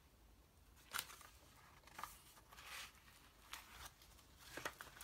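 Pages of a paperback book turned and flicked through by hand: several soft paper rustles, the loudest about a second in.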